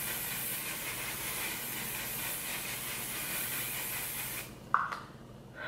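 Aerosol spray can held down in one continuous hiss, misting spray onto the face, cutting off sharply about four and a half seconds in.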